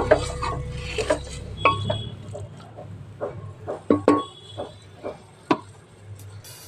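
Scattered, irregular light clinks and taps of a metal utensil against cookware, over a low steady hum.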